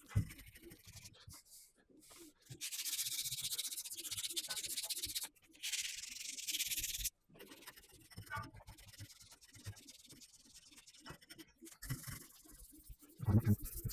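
Abrasive pad rubbing down primed van bodywork by hand in quick back-and-forth strokes. Two louder stretches of hissing rubbing come a few seconds in.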